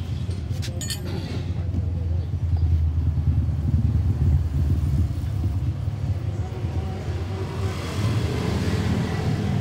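Steady low rumble of a motor vehicle engine running, with a few light clicks just under a second in.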